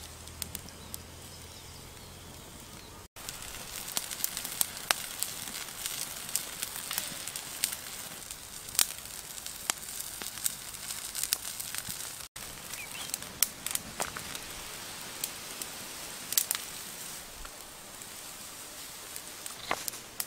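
Wood-ember cooking fire crackling, with frequent sharp pops over a steady hiss, under a pig's head roasting on a stick.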